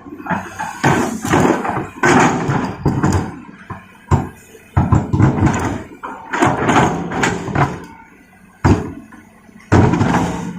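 Large rocks dropping from an excavator bucket into a steel dump-truck bed: heavy thuds and clattering in irregular bursts, with short lulls between.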